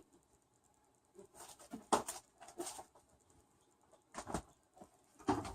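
Short clunks and scrapes of a Tupperware Micro Pro Grill microwave grill being handled: a cluster of knocks in the first half, then two more single knocks, as the cooker is taken out and opened to flip the chicken halfway through cooking.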